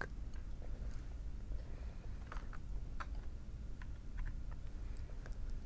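Low steady background hum with a few faint, scattered clicks spread over the middle and latter part.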